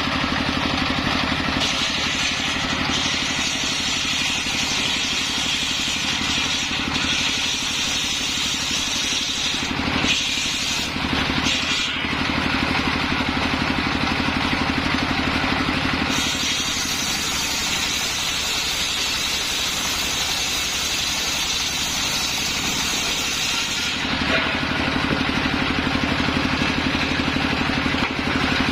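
Circular saw rig running steadily with a low hum, its blade cutting coconut-palm wood in long passes that add a harsh high hiss, broken briefly about ten to twelve seconds in.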